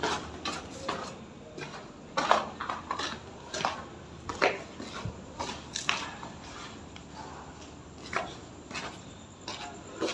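Footsteps going down concrete stairs and across a gritty concrete floor strewn with brick debris: irregular scuffs and crunches, about two a second.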